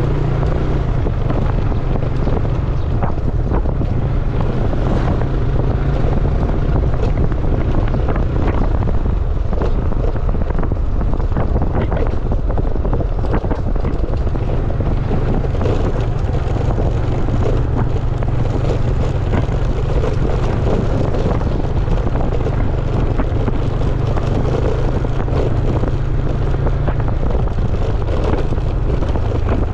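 Small automatic scooter running steadily while ridden over a bumpy dirt track, with wind rumbling on the microphone and frequent small knocks and rattles from the ride.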